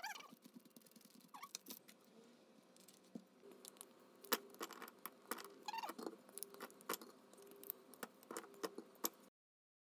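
A bar of white chocolate being snapped into pieces by hand: a faint, irregular string of sharp snaps and clicks that stops abruptly near the end.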